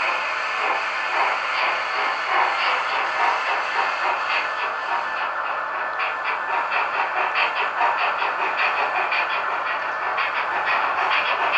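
Henning sound decoder in a Roco HO-scale model of a DR class 44 steam locomotive playing its steam-engine sound through the model's loudspeaker as the locomotive pulls a train of freight wagons, with the model wagons' wheels running on the track. A quick, even beat of about five strokes a second sets in about halfway through.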